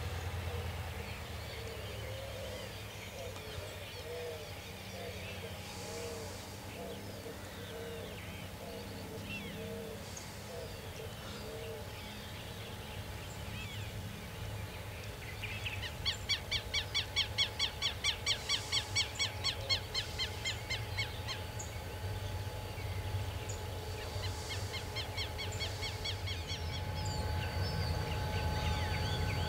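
Low steady rumble of an EMD GT22 two-stroke diesel locomotive drawing near, under birdsong. Birds call throughout: a run of short repeated low calls in the first third, and a loud rapid trill lasting about five seconds from around halfway.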